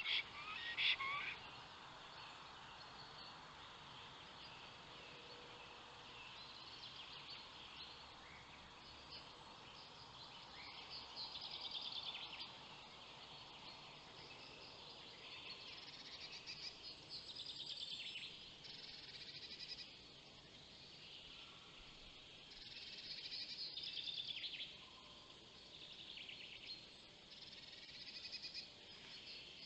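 Faint songbirds singing: high song phrases of quick sweeping notes come every few seconds over a steady low hiss.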